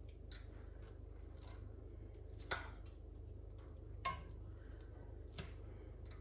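A metal slotted spoon knocking lightly against an aluminium pan and colander three times, a second or so apart, as parboiled rice is scooped and spread in layers, over a faint low hum.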